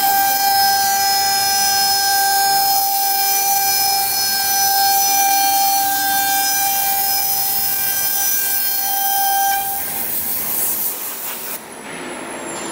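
CNC router spindle whining at a steady high pitch as it cuts a wood panel, over a hiss of blown air clearing the dust. The whine stops about ten seconds in, leaving a quieter hiss.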